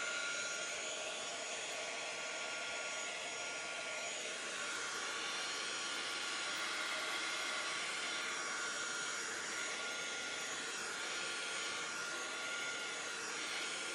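Handheld craft heat gun running steadily, blowing hot air with a constant whine to dry fresh craft paint on a fabric apron.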